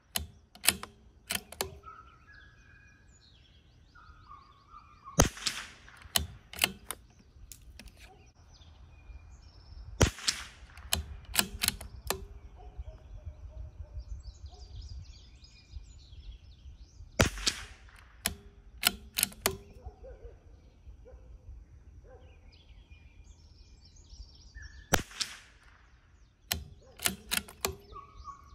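CZ 457 bolt-action rifle firing Eley Match .22 LR rimfire rounds: four sharp shots several seconds apart, each followed by a quick run of clicks as the bolt is worked to chamber the next round. Birds chirp faintly between shots.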